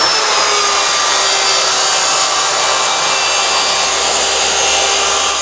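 Jemar JRT-1200 plunge track saw running at full speed with a steady high whine, its 6-inch blade cutting across a laminated rubberwood panel as the saw is pushed along its aluminium guide rail.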